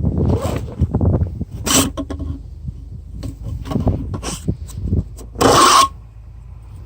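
Gear being handled: irregular rubbing, scraping and rustling, with a louder, brief rasping hiss about five and a half seconds in.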